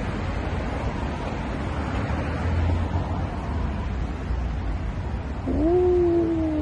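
Street noise with wind buffeting the phone microphone and a steady low traffic rumble. Near the end a man's voice lets out one drawn-out "oh~", rising at first and then sliding slightly down.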